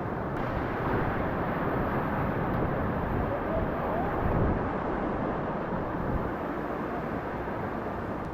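Steady rushing of whitewater in a creek rapid.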